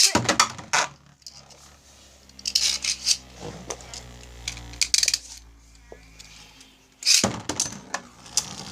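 Beyblade spinning tops clattering in a plastic stadium: a sudden burst of clatter at the start, then a steady low whir with scattered sharp clicks and clashes, which stops abruptly about seven seconds in as another burst of clatter begins.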